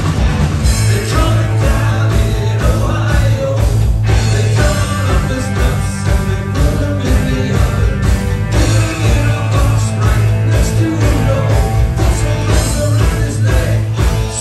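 Rock band playing live, loud and continuous: electric guitar and drums over a heavy low end, with a lead vocal.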